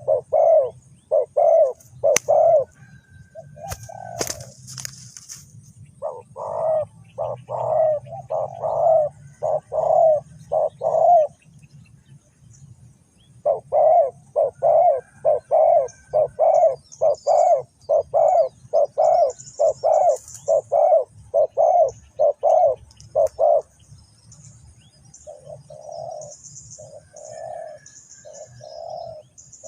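A dove cooing in long runs of short, evenly spaced coos, nearly two a second, broken by pauses of a couple of seconds. Faint high chirps of small birds are heard in the second half, and a short burst of noise comes about four seconds in.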